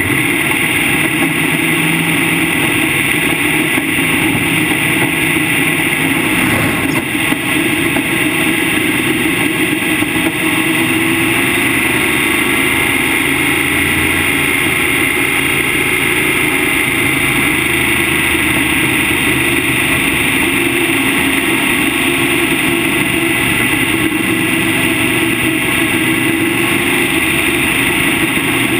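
Modified race car's engine running at speed on track, its note shifting a little now and then, heard from inside the cockpit along with steady wind and road noise.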